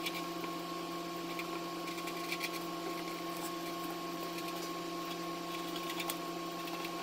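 Felt-tip marker scratching on paper in short strokes as figures are written, over a steady electrical hum.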